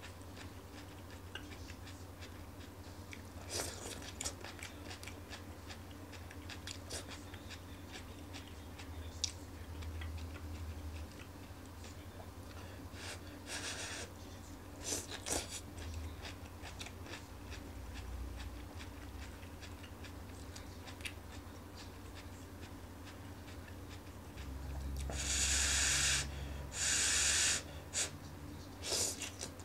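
A person eating a lettuce stir-fry, chewing mouthfuls of leafy vegetables, with scattered light clicks of wooden chopsticks picking through a frying pan. A few louder hissing sounds come near the end.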